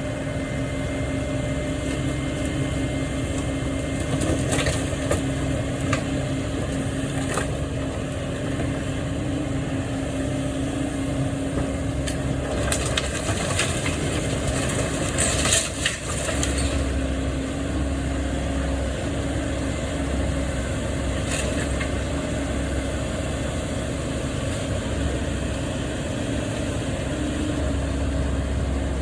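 A heavy machine's engine running steadily while a building's walls are torn down, with scattered cracks and crunches of breaking material and the loudest crunching about halfway through.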